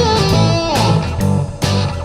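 Rockabilly band playing an instrumental passage: an electric guitar lead with sliding notes over bass guitar and drums.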